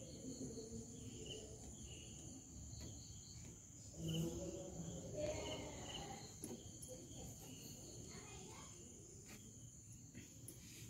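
Crickets trilling steadily in the night, a constant high-pitched drone. A brief, louder voice sound comes about four seconds in.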